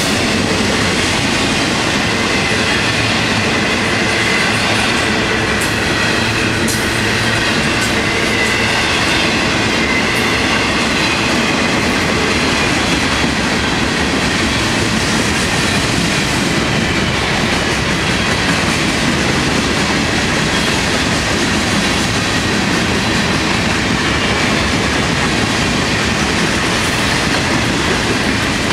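A long freight train's cars rolling past close by: a loud, steady rumble of steel wheels on rail. Thin high wheel squeal is faintly heard in the first half, and a few sharp clicks come about five to seven seconds in.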